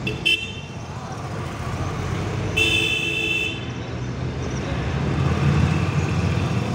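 Steady engine and road rumble of a bus on the move, with a brief vehicle horn toot just at the start and a louder horn blast lasting about a second around the middle.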